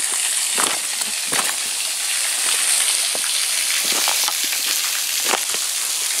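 Small waterfall trickling and splashing onto a rock and gravel bed, a steady hiss, with irregular crunching footsteps on loose stones.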